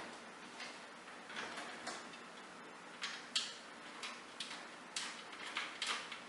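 Metal computer case side panels being handled and fitted, giving irregular sharp clicks and light scrapes, thicker in the second half.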